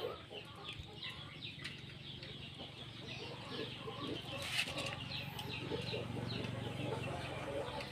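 Chickens clucking amid many short, high, falling chirps that repeat all the while, over a low steady hum; a brief click comes about four and a half seconds in.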